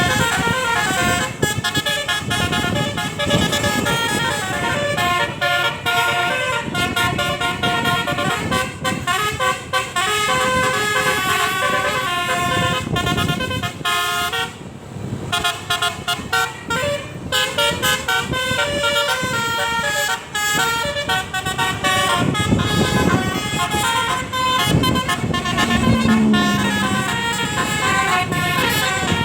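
Indonesian bus 'telolet' horns: multi-tone air horns playing quick, stepping melodies, overlapping and sounding almost without a break, with a short lull about halfway through.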